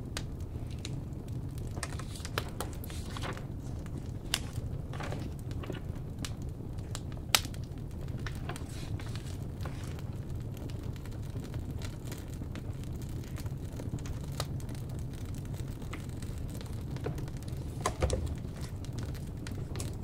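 Burning firewood crackling: irregular pops and snaps over a steady low rumble, with one sharp pop about seven seconds in.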